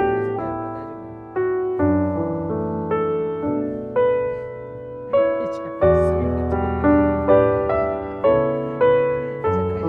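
Background piano music: a calm melody with notes struck about twice a second, each dying away.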